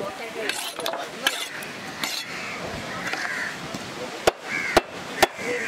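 A heavy fish-cutting knife chops into a fish on a wooden block. Three sharp strikes come about half a second apart in the second half.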